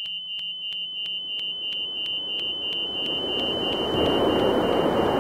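A helicopter cockpit warning alarm beeps fast and high-pitched, about five beeps a second, as the helicopter falls after a pin snapped loose in the rotor mechanism. Beneath it a rushing noise swells and becomes the loudest sound over the last second or so.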